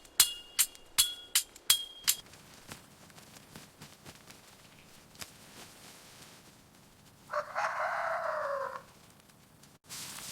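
A rapid run of sharp metallic clinks with a ringing tone for about the first two seconds, then a rooster crowing once, about seven seconds in.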